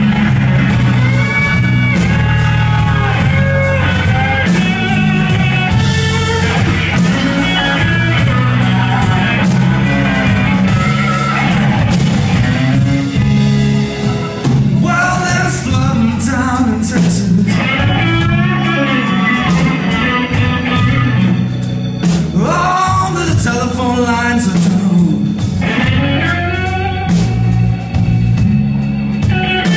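A live electric blues band playing a slow blues: electric guitar, bass, drums and keyboards, with a sung vocal line over the guitar.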